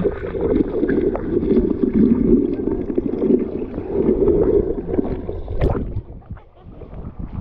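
Water sloshing and gurgling close to the microphone around a kayak, a dense rumbling wash that eases off about six seconds in. A single sharp knock comes shortly before it eases.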